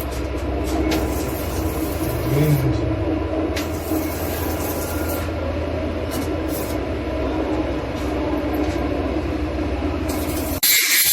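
Steady low hum and rumble of a train's machinery heard from inside the rail car, with a few faint clicks. Near the end a loud high hissing noise cuts in suddenly.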